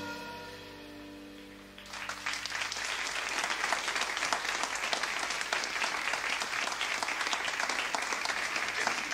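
A jazz band's final held chord dies away, then audience applause breaks out suddenly about two seconds in and carries on.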